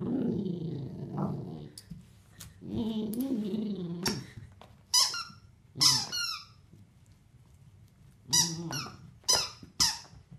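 A dog's squeaky toy being squeezed, giving about six short, high squeaks in the second half. Before them the dog makes low, drawn-out growling sounds for a few seconds.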